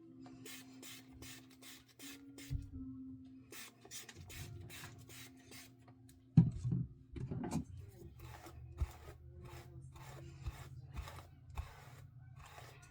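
Hairbrush strokes rasping through hair, about two to three a second, with one loud knock about six seconds in.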